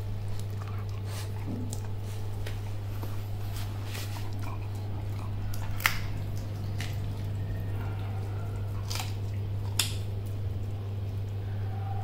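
Dogs moving about and mouthing raw chicken wings on a concrete floor: scattered sharp clicks, about one every second or two, with the clearest near the middle and about ten seconds in. A steady low hum runs underneath throughout.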